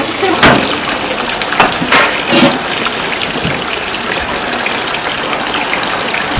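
Running water gushing steadily, as from a kitchen tap, with several sharp clatters in the first two and a half seconds.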